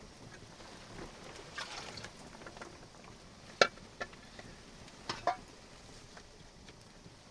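A few scattered light knocks and clicks over a faint steady hiss, the sharpest a single click just past halfway and a quick double knock a little later.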